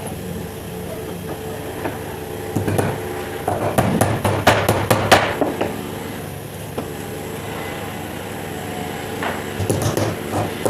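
Hammer blows in quick runs about three to five seconds in and again near the end, over a faint steady hum.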